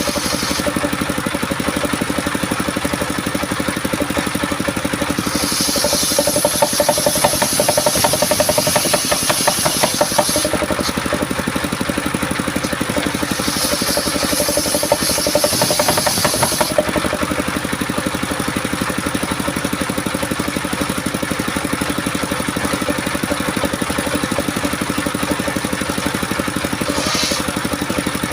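Engine-driven homemade circular saw running steadily. Its blade cuts through coconut wood twice, from about five seconds in for about five seconds and again from about thirteen seconds in for about three, each cut adding a hiss and a fast rattle over the engine.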